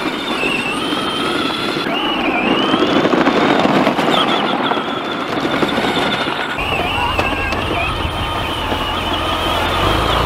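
Battery-powered ride-on toy tractors driving over dirt and dry grass: a steady, wavering electric gear-motor whine over the rattle of plastic wheels. A low rumble comes in about two-thirds of the way through.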